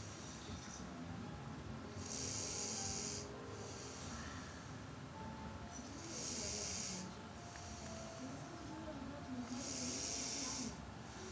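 A sleeping person snoring: three loud, breathy snores about four seconds apart, each lasting about a second, with a low rasp under the hiss.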